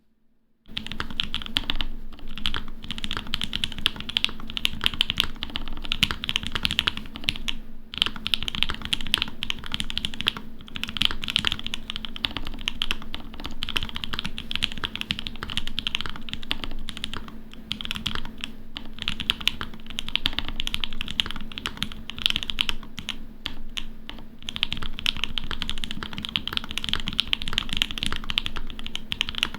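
Continuous fast typing on a CannonKeys Obliterated75 mechanical keyboard with lubed and filmed Mauve switches and GMK keycaps, starting about half a second in.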